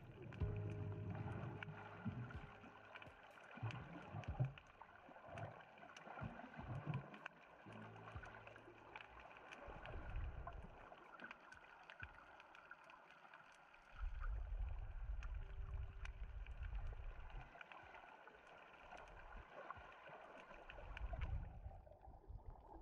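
Underwater reef ambience heard through the camera housing: a steady crackle of sharp clicks, with low rumbling surges of water moving over the camera several times.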